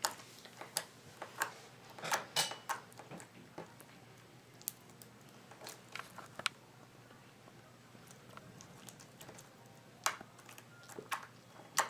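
Freshly made glitter slime being handled, stretched and squished by hand, giving irregular sticky clicks and pops, busiest in the first few seconds and again near the end.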